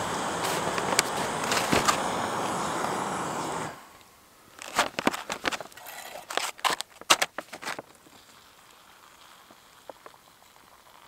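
Backpacking canister stove burner hissing steadily under a pot, then shut off abruptly about four seconds in. A few seconds of clicks and crinkling follow as the pot is handled and a foil meal pouch is opened.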